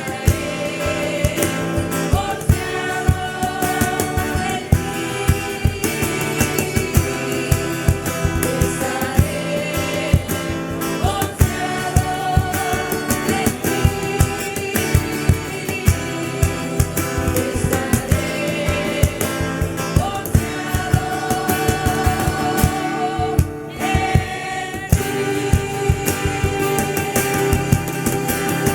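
Christian worship song: voices singing together over instruments, with a steady beat of sharp strikes.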